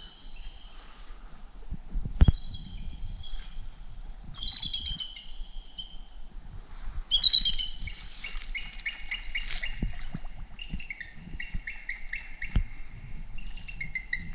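Bald eagles calling: a few high, thin whistled calls, then a long run of rapid, chattering piping notes through the second half. A sharp knock comes about two seconds in.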